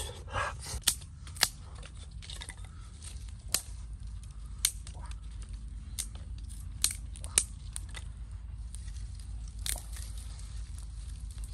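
Dry sticks and branches being handled and snapped: irregular sharp cracks, about eight over the stretch, over a steady low rumble.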